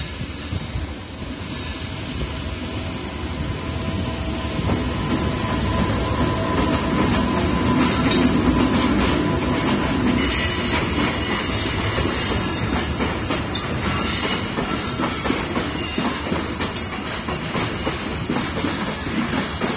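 Freight train of container wagons rolling past, wheels clattering with repeated clicks over the rail joints. The sound swells to its loudest about eight seconds in, and thin high squealing from the wheels runs through the second half.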